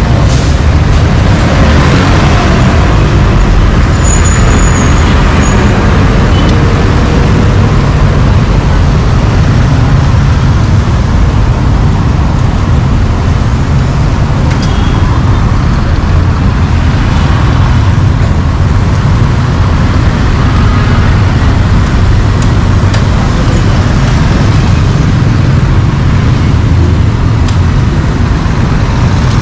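Steady street traffic noise: a continuous low rumble of passing vehicles' engines and tyres.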